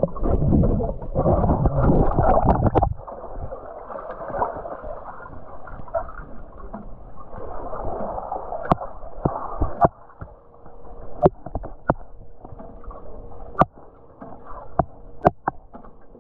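Muffled underwater sound from a camera submerged in a swimming pool: loud churning and gurgling water for about the first three seconds, then a quieter muffled wash of water with sharp clicks now and then.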